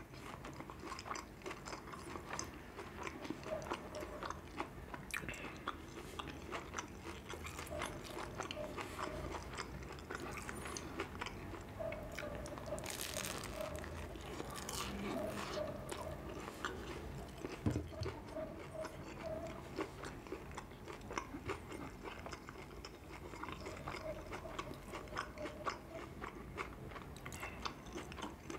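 Close-up chewing and biting of a soft bread roll filled with spicy sausage and onion: moist mouth clicks and squelches, with a few louder crunchy bites along the way.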